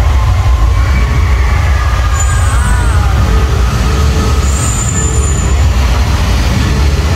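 Loud, steady low rumble from an animatronic show's sound effects as gas flames burst and smoke jets blow. A high hiss comes in briefly twice.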